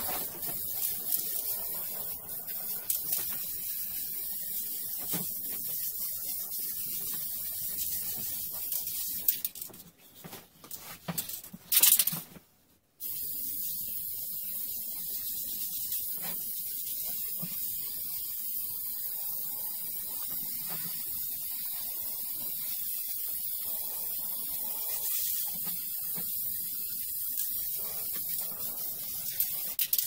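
Aerosol spray can of lacquer hissing steadily as it is sprayed in long passes over painted MDF. About ten seconds in the spraying breaks off for a few seconds, with one short loud noise, then starts again.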